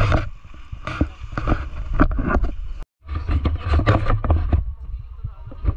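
Wind buffeting the microphone with the scrape of sliding over snow, coming in irregular gusts; the sound cuts out completely for a moment about three seconds in.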